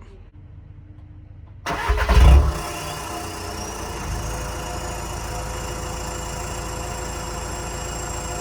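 2011 VW Jetta SportWagen's 2.0-litre common-rail TDI diesel (CJAA) cranking and catching about two seconds in, then settling into a steady idle. It is heard through a 3-inch turbo-back exhaust with the DPF, EGR and both cats deleted, running into the stock muffler. A faint high whine rises over the next couple of seconds, then holds steady.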